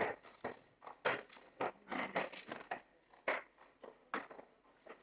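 Irregular soft knocks and shuffles of footsteps on a parquet floor, with papers being handled and a faint murmur in the room.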